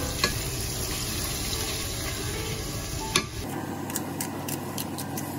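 Boneless chicken thighs sizzling steadily in oil in a non-stick wok, with a couple of sharp clicks of tongs against the pan. About three and a half seconds in the sound changes to a quick run of sharp snips: kitchen scissors cutting green onion over the pan.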